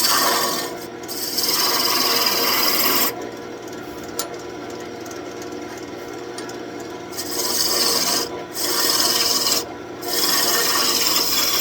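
A turning tool cutting into a spinning birch branch on a wood lathe, taking aggressive roughing cuts that rasp loudly in several bouts. The lathe hums steadily in a quieter gap between the cuts.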